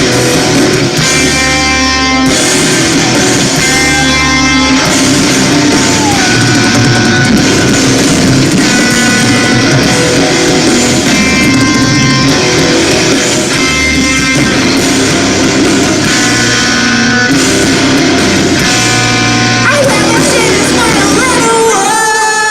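Live rock band playing loud electric guitars, bass and drums with some vocals, in the closing bars of a song. Near the end the guitar notes slide down in pitch.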